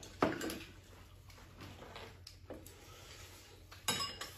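Chopsticks and spoons tapping and clinking against porcelain bowls and plates while people eat: scattered light clicks, with a louder clatter near the end.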